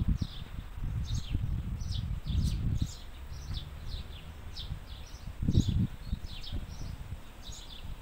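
House sparrows chirping, a steady run of short, high chirps about two a second. Wind gusts on the microphone underneath, loudest about five and a half seconds in.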